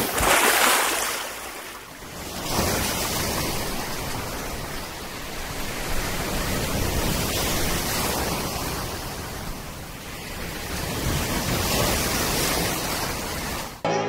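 Sea waves breaking and washing on a shore, a rushing noise that swells and ebbs in slow surges. Music cuts in just before the end.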